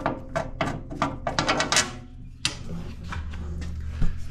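Threaded fastener knobs being unscrewed and pulled from the cover of a planer: a rapid run of metal clicks and rattles, then a single knock near the end.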